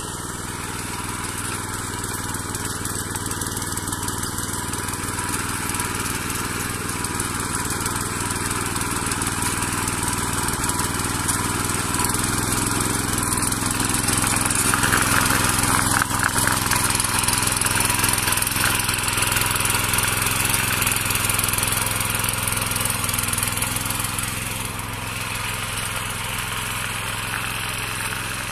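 Mini power weeder's small engine running steadily under load as its rotary tines till dry soil. It grows louder as the machine passes close in the middle and drops back a few seconds before the end.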